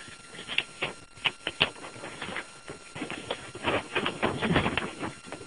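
Paper rustling and crinkling with scattered clicks and knocks as a folded note is handled and opened, busiest a little past the middle.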